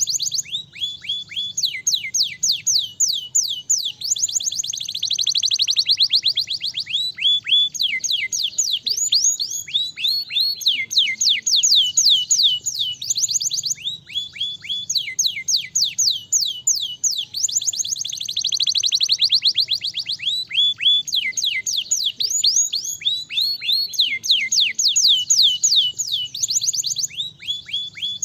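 Canary singing a fast, unbroken song: rolls of rapidly repeated notes, each note sweeping down in pitch, switching to a new roll every second or two.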